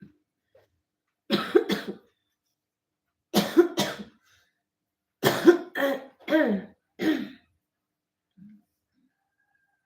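A person coughing in three bouts: two coughs, then two more, then a run of four.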